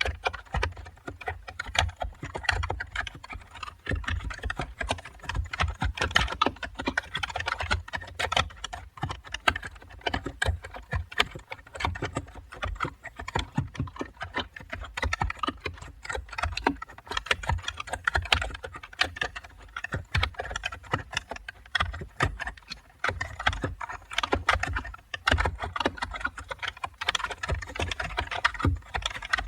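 Computer keyboard being typed on continuously: a quick, irregular run of key clicks with no pauses.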